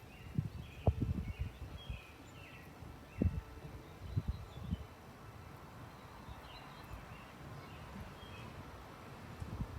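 Small birds chirping here and there in a suburban outdoor ambience, over a steady background hiss. Irregular low rumbling thumps come and go, loudest about a second in and again about three seconds in.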